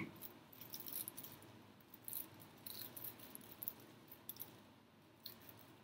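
Faint, scattered crinkles and light clicks of braided plastic-bag strips being handled and pressed around a bowl, a few small ticks every second or so.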